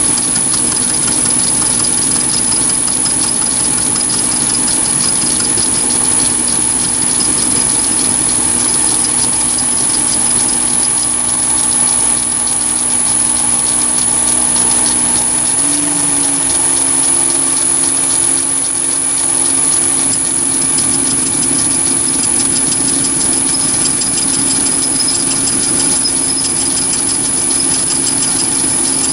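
Chinese mini lathe running a 10 mm four-flute end mill that is milling a slot in brass bar: a steady motor and gear hum with a high whine. The hum's pitch steps up a little about halfway through.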